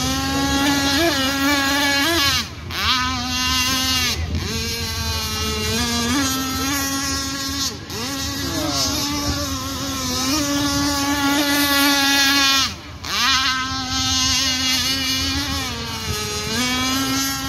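RC speedboat's Zenoah two-stroke petrol engine running at high revs, its pitch dropping sharply four times as the throttle is eased and climbing back each time.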